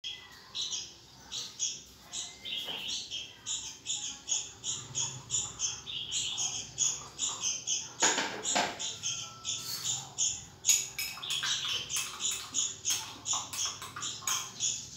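Red-whiskered bulbul nestlings begging for food: a steady run of short high chirps, about two to three a second, that quicken from about ten seconds on. A brief louder noise comes about eight seconds in.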